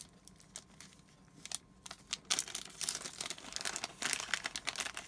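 A small clear plastic bag crinkling as fingers work it open and handle it: faint scattered crackles at first, then denser, louder rustling from about halfway through.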